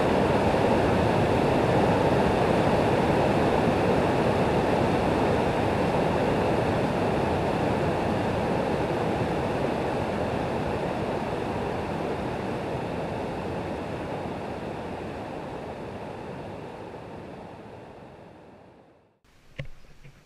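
Rushing white water of a mountain river rapid pouring over stones, a steady rush that slowly fades out over the second half. A couple of brief knocks come right at the end.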